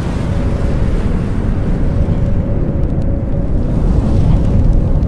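Logo-intro sound effect: a deep, dense rumble with a steady hum held over it, swelling slightly toward the end.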